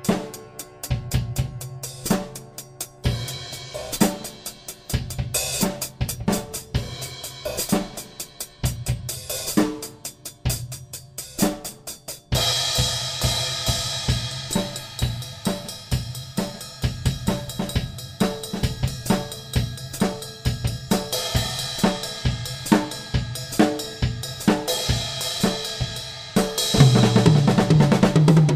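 Mapex Saturn walnut/birch drum kit with Zildjian Z3 cymbals, close-miked, played in loose fills and patterns across kick drum, snare and toms. About twelve seconds in, a sustained cymbal wash joins the beat. Near the end comes a louder, dense run of low drum hits.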